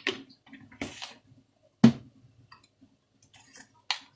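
A few short sharp clicks and knocks of steel kitchen utensils being handled, spread through a few seconds, the loudest about two seconds in.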